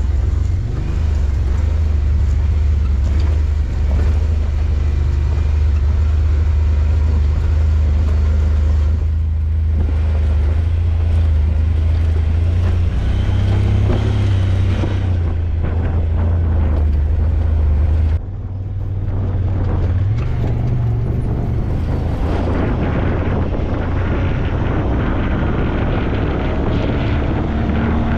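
Vehicle engine running steadily under way, with wind on the microphone. About two-thirds of the way through, the engine note drops off suddenly, then climbs again.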